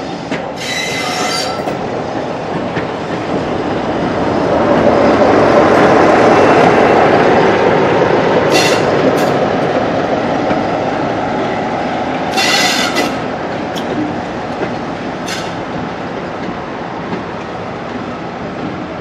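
A slow diesel-hauled train of coaches with a Class 47 locomotive at the rear rolling past over pointwork: a steady rumble of wheels on rail that grows to its loudest in the middle and then fades as the train moves away. Short high-pitched wheel squeals cut in several times.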